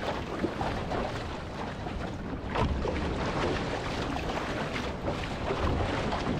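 Wind buffeting the microphone over choppy sea water splashing and washing against a one-person outrigger canoe (OC-1) as it is paddled, with a few sharper splashes.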